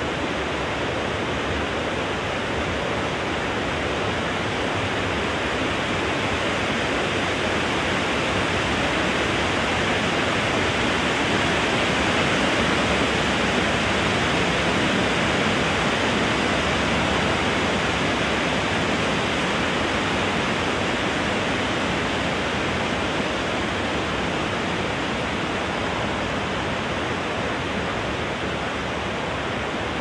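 Wind blowing steadily through trees, a continuous rush that swells a little about halfway through and eases slightly near the end.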